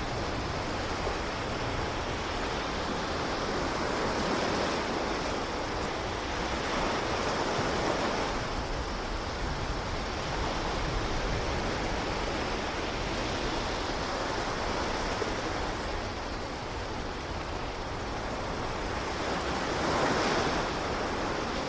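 Sea surf washing onto a rocky shore, a steady rush of water that swells and eases in uneven surges every few seconds.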